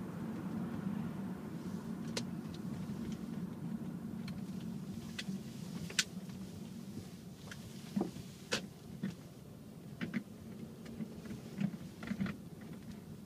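A car driving slowly, heard from inside the cabin: a steady low road and engine hum, with scattered sharp clicks and ticks, more of them in the second half.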